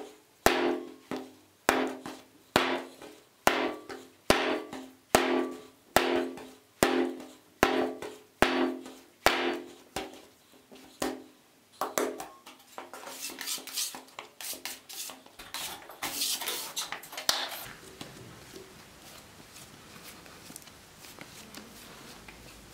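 Bread dough being kneaded by hand on a wooden tabletop: a steady thump with a short wooden ring about once a second as the dough is pushed down against the table. After about twelve seconds it gives way to a few seconds of rubbing and patting of hands in flour, then quiet room tone.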